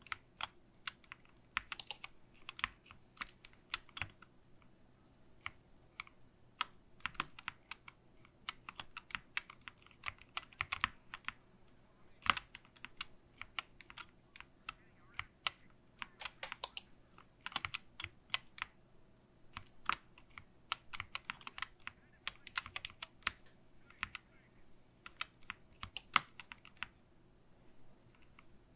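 Typing on a SteelSeries Apex Pro Mini wireless keyboard with OmniPoint magnetic switches: irregular runs of key clicks broken by short pauses.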